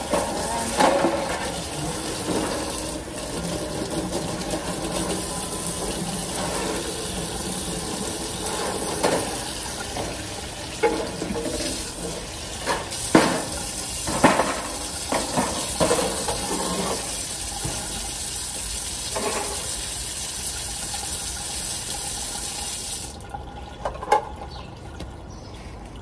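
Running water from a hose splashing over a wire bird cage and its plastic tray and onto a tiled floor, stopping about three seconds before the end. Several clunks come in the middle as the cage is tipped to drain.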